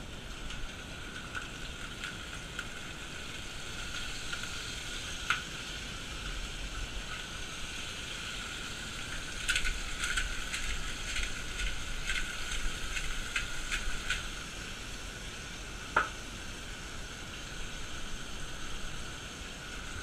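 Chain pickerel pieces sizzling in a frying pan with a steady hiss. A run of crackles and clicks comes around the middle, and a single sharp click follows a couple of seconds later.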